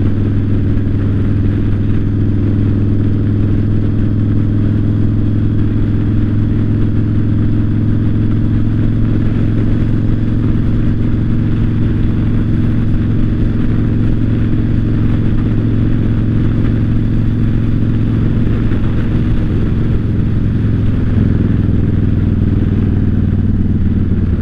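2008 Yamaha Raider's 113-cubic-inch V-twin running steadily at an even cruising speed through its debaffled stock exhaust.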